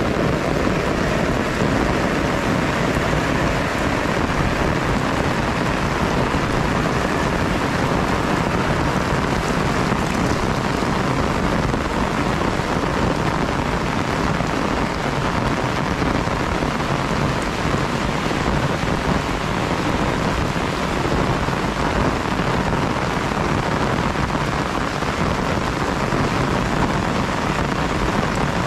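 Heavy rain pouring steadily: an even, dense hiss that does not let up.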